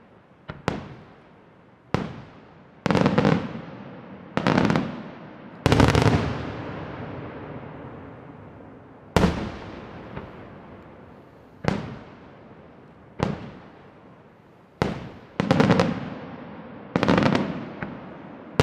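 Aerial fireworks shells bursting one after another: about ten sharp bangs at uneven gaps, each followed by a long rolling echo that fades over a second or more. Several bursts have a crackling rattle.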